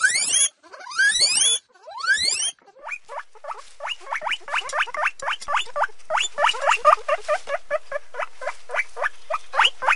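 Hamster squeaks: four upward-sliding squeaks in the first few seconds, then a fast run of short rising chirps, about four a second, over a faint hiss.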